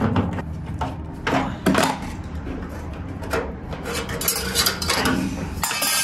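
Light metallic clinks, taps and rubbing from hands and a screwdriver handling the water heater's gas control valve and wiring, with a cluster of quick clicks near the end, over a steady low hum.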